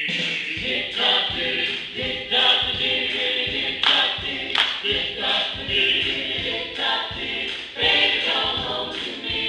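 A vocal group singing a doo-wop song together in close harmony, several voices carrying the tune over a regular beat.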